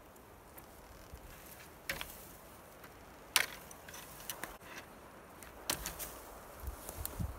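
Hand wire cutters working on old barbed wire on a fence post: a few separate sharp metallic clicks and snaps, the loudest about three and a half seconds in.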